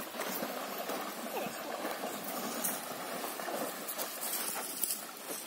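Horse wading through a shallow river, water splashing around its legs with irregular sloshes.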